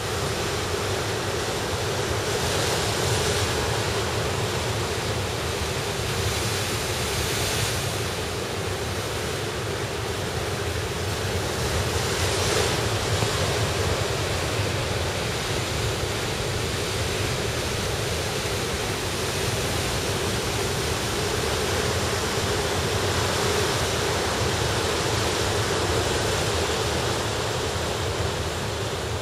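Ocean surf breaking and washing over shoreline rocks, a steady rush of surf with louder surges a few times as bigger waves come in.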